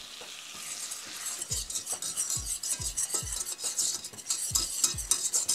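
Wire whisk stirring flour into hot, sizzling butter in a stainless steel saucepan, making a roux: a steady sizzle with repeated whisk strokes about twice a second.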